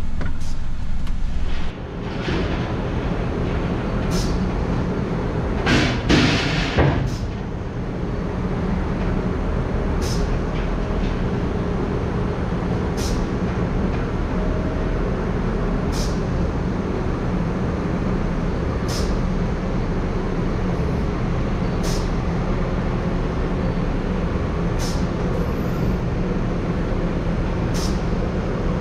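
Volvo FH truck's diesel engine idling steadily. A short loud burst of noise comes about six seconds in, and a faint click repeats about every three seconds.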